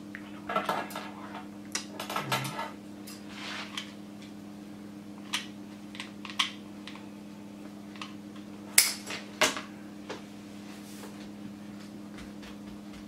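Irregular clicks, taps and short rustles of craft materials being handled during wreath-making, the sharpest pair about nine seconds in, over a steady low hum.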